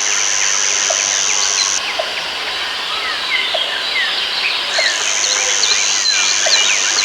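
Dense rainforest ambience: many birds chirping and whistling over one another. An insect's steady high buzz sounds for about the first two seconds, stops, and starts again about five seconds in. A soft short note repeats about every second and a half underneath.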